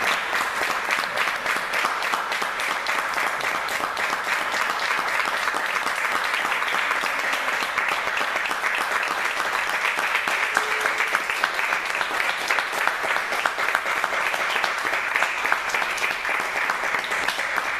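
Audience applauding: many hands clapping in a dense, even stream that holds steady throughout.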